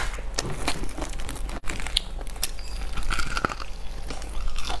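Close-miked crunching and crackling of a crispy deep-fried, batter-coated chicken leg being bitten and chewed, with many quick crackles. The sound drops out for an instant about a third of the way in.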